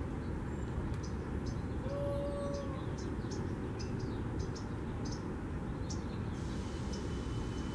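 Small birds chirping, many short high chirps, over a steady low rumble, with one brief steady tone about two seconds in.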